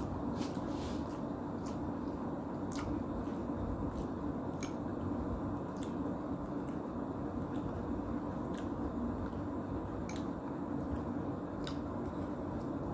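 Close-miked chewing and mouth sounds of someone eating instant noodles: soft wet squishing with scattered small clicks, over a steady low hum.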